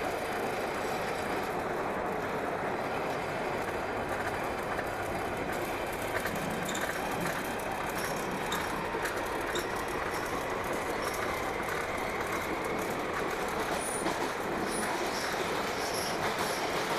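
London Underground Northern line train running through a tunnel, heard from inside the carriage: a steady rumble and roar of wheels on rail that does not let up.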